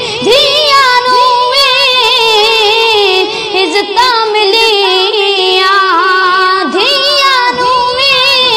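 A boy singing a Punjabi naat (devotional song to the Prophet), drawing out one long ornamented line with a wavering, shaking pitch.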